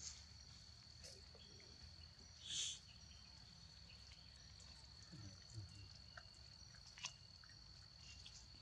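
Quiet outdoor ambience dominated by a steady high-pitched insect drone, with one brief hiss about two and a half seconds in and a few faint clicks.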